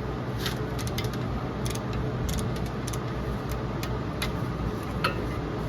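Scattered sharp metallic clicks of a socket and breaker bar being fitted and worked on the brake caliper bracket bolts, about six separate clicks over a steady low hum.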